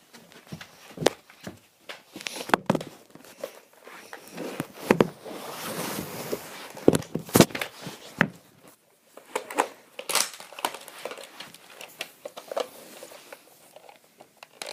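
NERF Elite Strongarm toy blaster being handled, primed and fired: a string of sharp plastic clicks and clacks from the priming slide, trigger and turning cylinder, with rustling handling noise in between.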